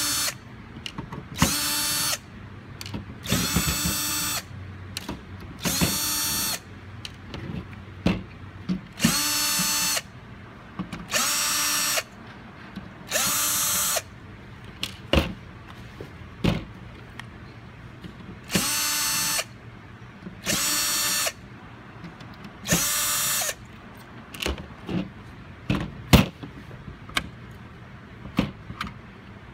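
Cordless drill-driver backing out small screws from a mini PC's metal case: about ten short runs of steady motor whine, each around a second long. Between runs, and near the end, come sharp clicks of screws and the metal case being handled.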